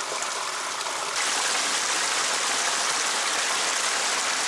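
Small forest creek rushing over rocks. About a second in, a louder, steady rush of a small waterfall spilling over a ledge close by.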